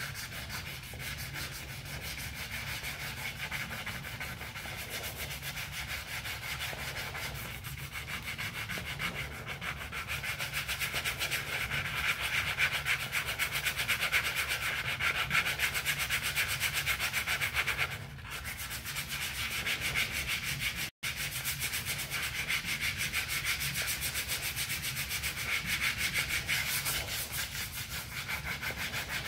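80-grit sandpaper rubbed back and forth by hand over the scraped aluminum skin of a truck canopy, a steady scratchy rasping of repeated strokes. It stops for a moment about two-thirds of the way through.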